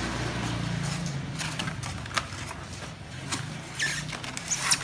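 Cardboard box sleeve and styrofoam packaging being handled: a sliding, rustling scrape for about the first second, then a few sharp clicks and knocks. A steady low hum runs underneath.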